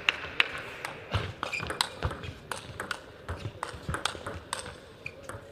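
Table tennis rally: the celluloid-type ball clicking off the bats and the table in an irregular run of sharp ticks, with a few dull thuds among them.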